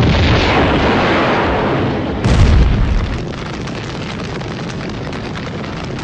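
Explosion sound effect: a sudden loud blast, a second blast about two seconds in, then a steady rumble.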